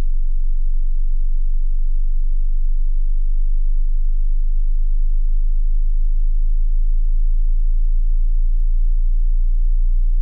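A very deep, steady sine-wave test tone, low in the bass, from a hearing-test sweep that climbs gradually from low to high pitch.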